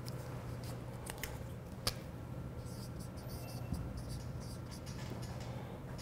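Marker pen writing on a whiteboard: faint scratchy strokes through the second half, after a few sharp ticks near the start.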